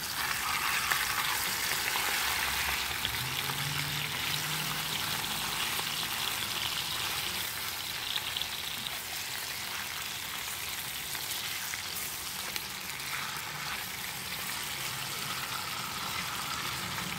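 Boneless, skinless chicken thighs sizzling steadily as they brown in a greased cast iron Dutch oven, with a wooden spatula stirring them now and then.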